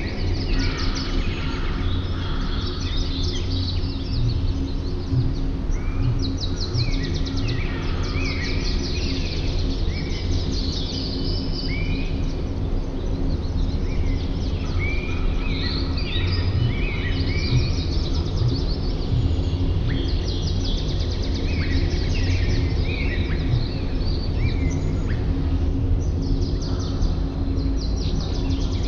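A chorus of many small birds chirping and singing, with rapid trills and short sweeping notes overlapping throughout, over a steady low rumble.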